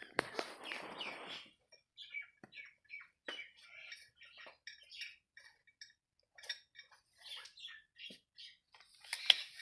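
Small birds chirping in short scattered calls. Near the start there is a brief rustle of cloth and sacking being handled.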